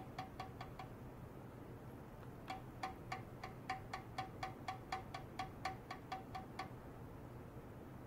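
Ultrasonic probe on a stainless steel tray, driven by a function generator, giving a run of short ringing pings about four to five a second. The pings pause for a second or two and stop again near the end, over a faint steady hum.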